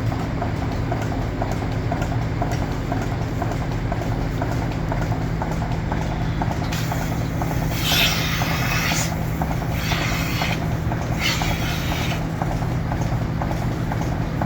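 Dairy milking system running: a steady machine hum with fast, even clicking, broken by two or three hissing bursts of a second or so in the middle.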